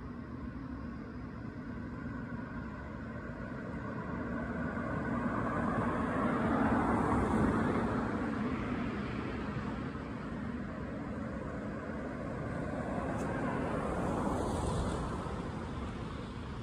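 Road traffic: two vehicles pass one after the other, each swelling up and fading away, the first loudest about seven seconds in and the second near the end.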